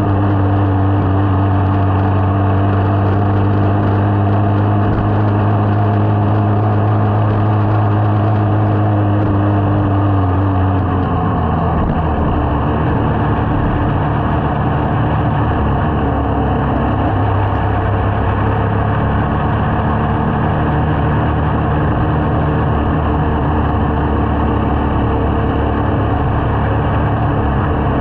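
Small motorcycle engine running steadily while riding, heard as a low hum. About eleven seconds in the engine note drops in pitch and blurs into a low rumble of wind and road noise as the bike slows.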